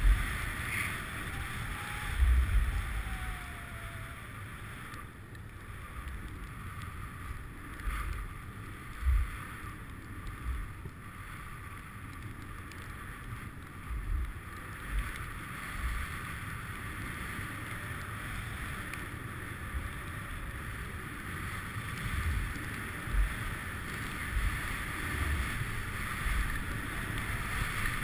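Wind rushing over an action camera's microphone during a fast ski descent, with the steady hiss of skis sliding on snow and low thumps of wind buffeting every few seconds.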